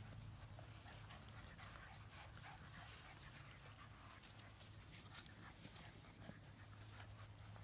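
Faint sounds of bullmastiff puppies crowding and climbing on a person: soft panting and small whimpers, with scattered light clicks and rustles over a low steady hum.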